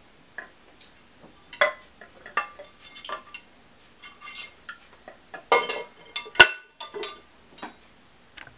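Glazed ceramic lid of a pet drinking fountain being handled and set back onto its ceramic bowl: a string of irregular clinks and knocks, the sharpest about six seconds in.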